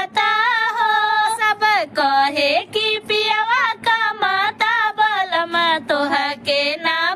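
A female voice singing a Bhojpuri folk song, high sustained notes that waver and slide between pitches, phrase after phrase with short breaks.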